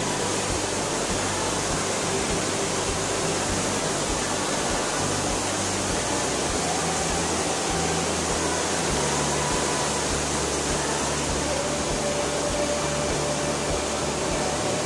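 Steady rush of water from a fast-flowing stream and waterfall.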